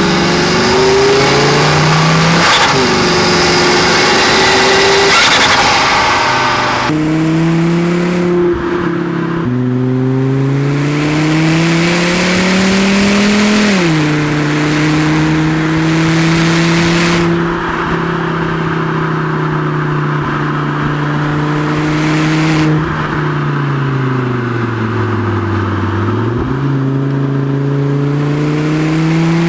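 2006 Volvo V70R's turbocharged five-cylinder engine, heard through an exhaust microphone while being driven hard. The revs climb, drop sharply a third of the way in as it shifts up, hold steady, fall away near the end and climb again. A high turbo whistle rises over the engine in the first several seconds.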